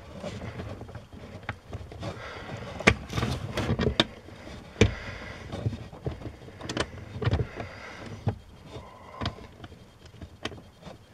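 Hands working under a truck's dashboard, fitting a plastic accelerator pedal position sensor assembly and starting its top mounting fastener by hand: scattered clicks and knocks over rustling, with a sharper click about three seconds in and another near five.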